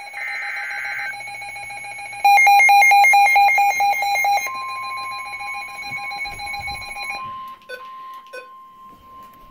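An EAS alert sequence on NOAA Weather Radio. It opens with the last burst of the SAME digital header, a short data screech, over a steady electronic alert tone. About two seconds in, loud rapid electronic alarm beeping runs at about four beeps a second for a couple of seconds. Then the steady 1050 Hz weather radio warning alarm tone comes in and holds.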